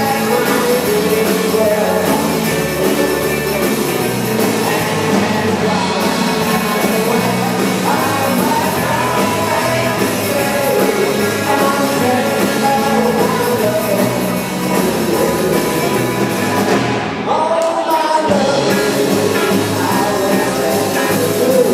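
Live rock band playing: electric guitars, bass and drums with a lead singer. The band drops out briefly about three-quarters of the way through, then comes back in.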